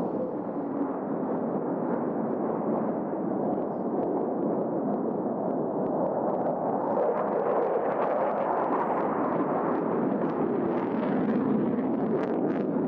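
Aircraft overhead in a flyby, a steady rumbling roar that holds at much the same level throughout.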